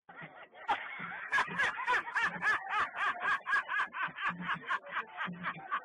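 A man laughing hard in quick, evenly repeated bursts, several a second.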